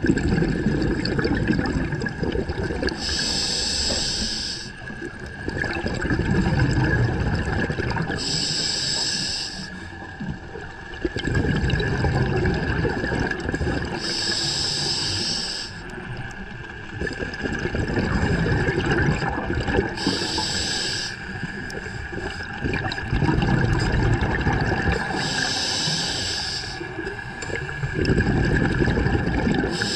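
Scuba diver breathing through a regulator underwater: a short hiss of inhalation through the demand valve about every five to six seconds, each followed by a few seconds of low bubbling as the exhaled air escapes.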